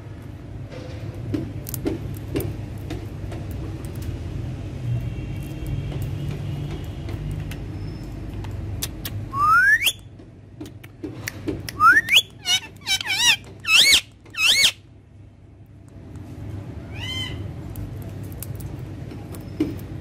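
Indian ringneck parakeet giving a single rising whistle about nine seconds in, then a quick series of sharp, shrill calls from about twelve to fifteen seconds, and one fainter call later. A steady low background hum runs under the first half.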